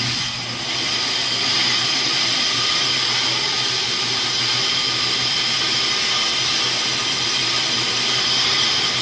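Brake lathe turning a brake rotor with its cutting bits fed in against the disc: a steady high-pitched metallic whine and hiss over the lathe motor's hum.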